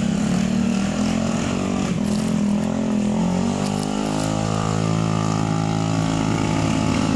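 A vehicle engine running continuously at a fairly steady pitch, dipping a little about halfway through and then holding.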